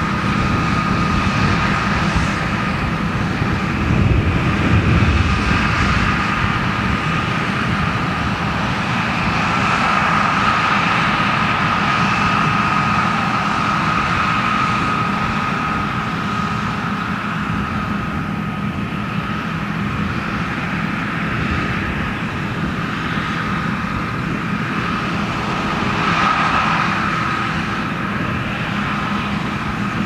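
John Deere combine harvester running while cutting wheat: a steady mechanical drone with a high whine running through it.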